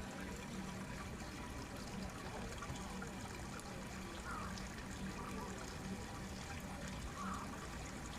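Steady trickle and rush of running water, with a low steady hum underneath.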